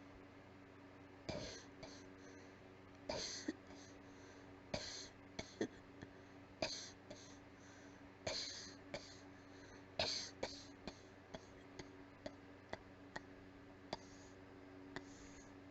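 A person's weak, breathy coughs: about six airy coughs, one every second and a half to two seconds, with fainter short clicks between them.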